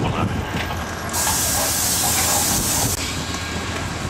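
Amtrak passenger train at a platform with a steady low rumble, and a loud burst of compressed air hissing from the train for about two seconds, starting about a second in and cutting off abruptly.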